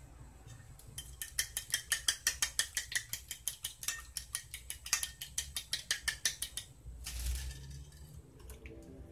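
Metal fork beating egg mixture in a ceramic plate: rapid, even clicking taps of the tines against the plate, several a second, stopping about seven seconds in.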